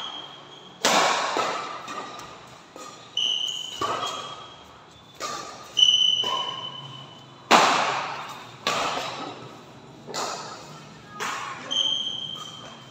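Badminton rally: rackets striking the shuttlecock about once a second, each hit sharp and followed by an echo in a large hall, with short high squeaks of shoes on the court between some hits.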